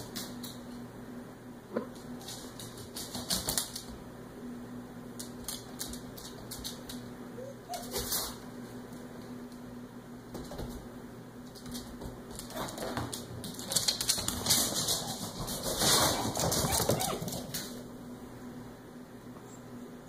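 Cat's and puppy's paws and claws clicking and skittering on a wood floor as they chase each other, in irregular flurries, the longest run about two-thirds of the way through.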